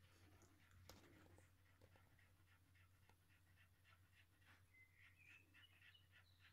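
Near silence with faint sounds of newborn puppies nursing: a fast, even run of soft suckling ticks and a brief high squeak near the end, over a low steady hum.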